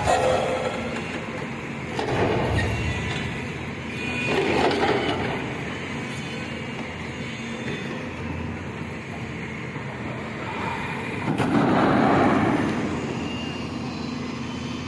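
CASE CX220C LC excavator's diesel engine running steadily, swelling louder several times as the machine works under hydraulic load, most strongly for about a second and a half near twelve seconds in.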